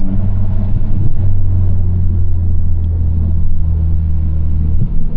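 2022 Honda Civic Si's turbocharged 1.5-litre four-cylinder running under way, heard inside the cabin as a loud, steady low drone.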